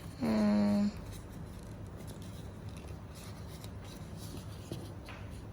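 A short, drawn-out voice sound near the start, then faint rustling and crinkling of A4 paper being handled and creased in origami folding.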